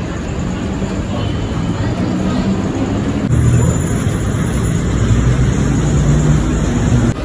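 Outdoor city ambience dominated by a steady, low rumble of road traffic. About three seconds in the sound changes abruptly and the rumble grows louder.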